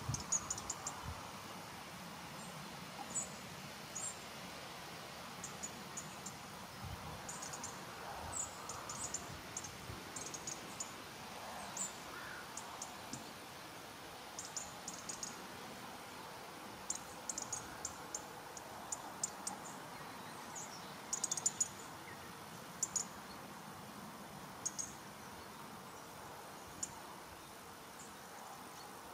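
Quiet pasture ambience: a faint steady hiss with high, thin chirps that come in short clusters every second or two.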